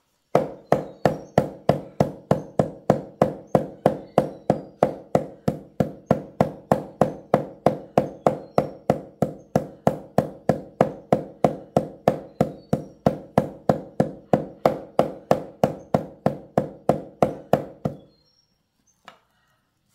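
Hammer blows on ringing metal, struck steadily at nearly three a second and stopping abruptly about 18 seconds in.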